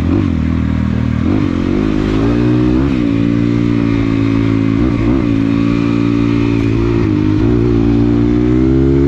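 Dirt bike engine running steadily under way, with short rises in revs several times.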